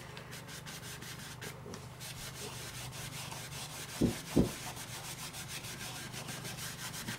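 A nearly dry crescent-shaped stencil brush scrubbed rapidly over a painted surface in a dry-brushing technique, a steady scratchy rubbing. Two soft knocks come close together about four seconds in.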